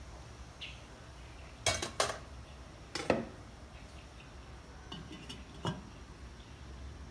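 Metal ladle clinking against a stainless steel pot: three or four sharp clinks in the first half, then the pot's steel lid set on with one more clink near the end, over a faint steady low hum.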